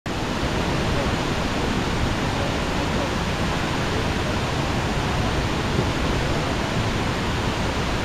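Steady, even rushing of the Kuang Si waterfall's cascades: a continuous hiss of falling water with no breaks.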